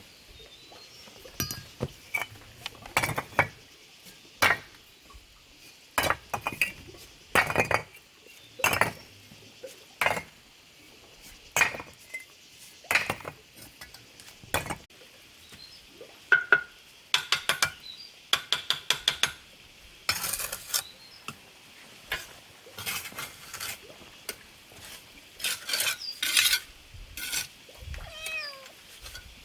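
Trowel scraping and tapping on mortar and bricks in irregular strokes, some in quick runs of several knocks, over a faint steady high hiss.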